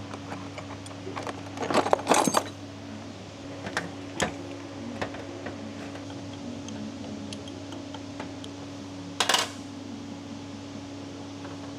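Metal tools and gearbox parts clinking on a workbench as an oil pump is taken apart. A cluster of clinks comes about two seconds in, then a few light clicks, then one sharp metallic clink near the end, all over a steady low hum.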